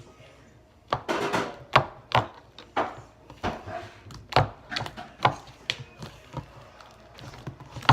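Sticky homemade fluffy slime being poked and worked by hand, giving irregular sharp clicks, snaps and squelches as it sticks and pulls away.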